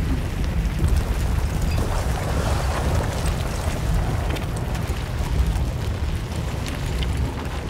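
Sound-design soundtrack of a façade projection-mapping show: a deep, steady rumbling drone with a hissing layer above it and scattered small crackles and clicks.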